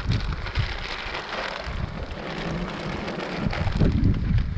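Wind buffeting the microphone with a low rumble, and a plastic bag crinkling and rustling as it is handled.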